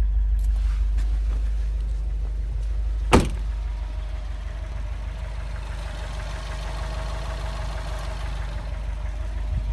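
Subaru boxer engine running steadily with a knocking noise that the owner cannot place as normal, rod knock or piston slap. One sharp click stands out about three seconds in.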